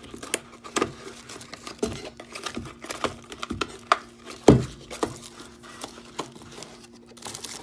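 A small cardboard box being handled and opened on a metal drill-press base: irregular taps, knocks and rustling of the box and its flaps, with one louder knock about four and a half seconds in. A faint steady hum runs underneath.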